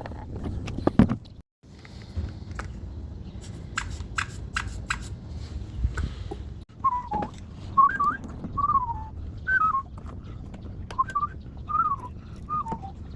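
A person whistling a tune in short, warbling phrases, starting about halfway through; before that come a few sharp clicks.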